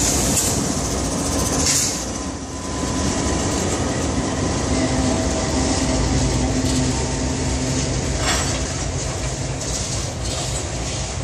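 CSX freight train passing close by: the last diesel locomotive goes by, then a string of covered hopper cars rolls past with a steady rumble of wheels on rail. A few sharper clacks stand out, about two seconds in and again near eight seconds.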